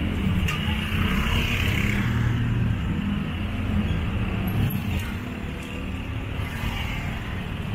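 Road traffic noise: engines of a box truck, cars and motor scooters running close by in slow-moving traffic, with scooters and a motorcycle tricycle riding past.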